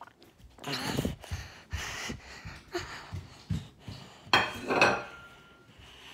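Dishes knocking and clinking as a plate is taken out and handled: several separate knocks, the loudest cluster about four seconds in, followed by a brief faint ring.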